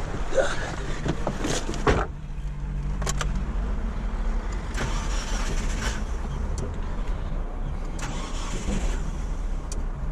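A car engine running steadily, with a sharp knock about two seconds in where the note of the low hum changes, and scattered light clicks.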